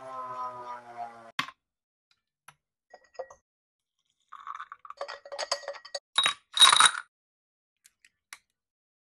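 Nespresso capsule coffee machine humming as it dispenses espresso, cutting off with a click about a second and a half in. A few faint ticks follow, then ice cubes clink and clatter against a glass, loudest between about six and seven seconds in.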